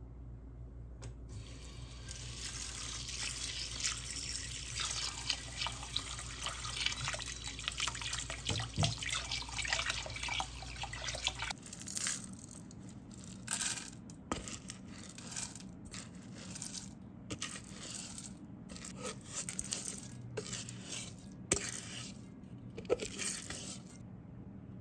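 Black glutinous rice being rinsed in a stainless steel pot: water runs steadily over the grains for about ten seconds, then stops. After that come a series of short, separate pours and splashes of water.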